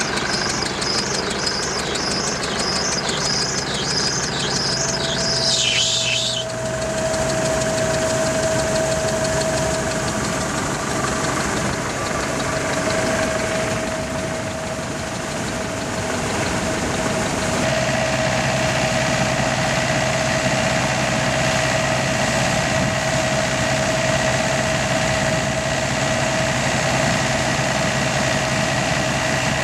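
Vintage 1963 Aktiv combine harvester running steadily while cutting wheat: engine and threshing machinery with a steady whine. A rapid repeating high squeak runs through the first several seconds.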